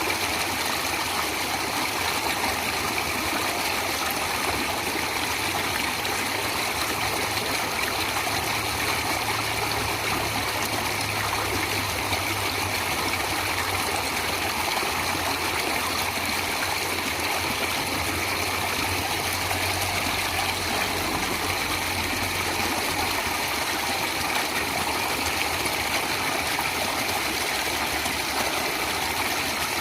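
Natural running water rushing steadily and without breaks, like a stream flowing over rocks.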